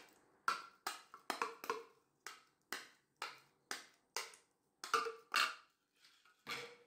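A spoon tapping and scraping against the inside and rim of a glass container, making irregular sharp clicks about two a second, as a thick spinach-and-egg purée is scraped out onto flour. Two clicks near the middle are the loudest.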